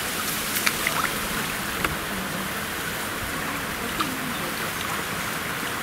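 Shallow lake water lapping and trickling around a sturgeon held in it by hand for release, with a few small ticks of splashing.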